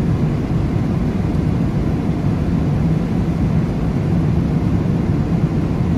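Jet airliner cabin noise at cruise altitude: a steady low rumble of engines and rushing air that does not change.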